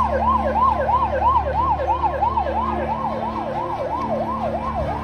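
Emergency vehicle siren in a fast yelp, the tone sweeping up and down about three times a second, over a steady low hum.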